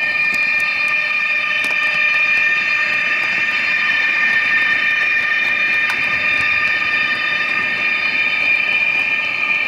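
H0-scale DB class 147 TRAXX AC3 electric locomotive model (Trix 22689) running with its onboard sound decoder playing the electric traction whine through the model's small speaker. The whine is a steady chord of high tones held at one pitch while the train cruises, with a few light clicks as the wheels cross track joints.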